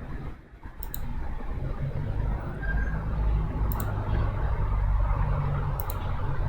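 Three sharp computer mouse clicks, about a second in, near four seconds and near six seconds, over a low steady rumble.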